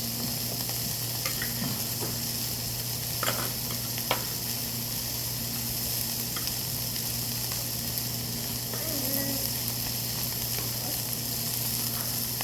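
Meat sizzling on a grill, a steady frying hiss over a low steady hum, with a couple of sharp clicks about three and four seconds in.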